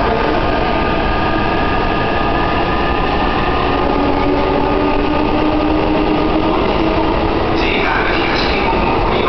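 JR East E233-3000 series electric train pulling away, its inverter-driven traction motors whining in several tones that slowly rise in pitch as it gathers speed, over the steady rumble of the wheels on the rails.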